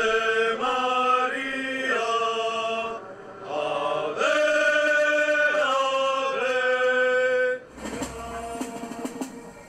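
A group of men chanting together in unison, in long held notes that step up and down in pitch. The chant stops about two seconds before the end, leaving a noisier background.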